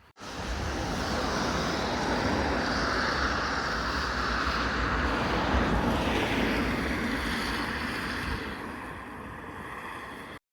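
Wind buffeting the microphone: a loud, steady rushing noise with a fluctuating low rumble. It starts abruptly, eases slightly near the end and then cuts off.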